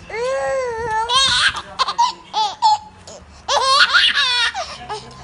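Baby laughing in three high-pitched bursts with short pauses between.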